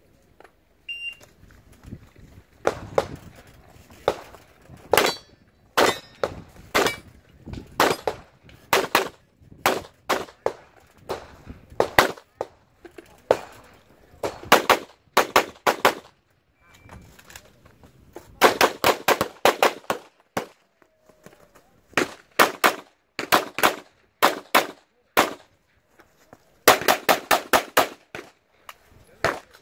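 A short high electronic beep from a shot timer about a second in, then a handgun course of fire. Pistol shots come in quick pairs and fast strings, broken by short pauses, and end in a rapid string of about eight shots near the end.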